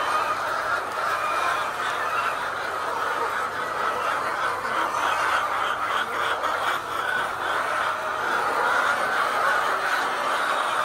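A large flock of layer chickens calling without pause, many overlapping clucks and cheeps blending into a steady chatter.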